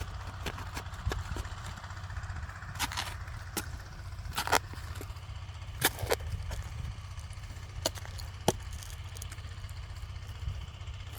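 Mini excavator engine running steadily with a low chug, with several sharp knocks in the middle stretch.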